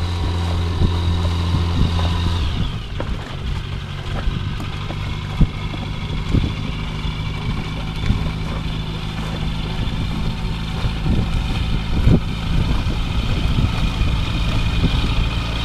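An engine running steadily, dropping in pitch about two and a half seconds in as it is throttled back, then idling with a few knocks.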